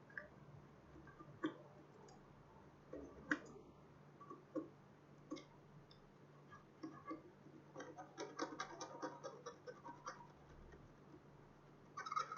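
Faint scattered clicks and scratches of a small tool working on a laptop motherboard's DC jack pads as they are cleaned, with a denser run of quick clicks about eight seconds in, over a faint steady low hum.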